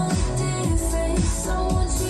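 Electronic dance-pop music with a heavy bass line and a steady beat.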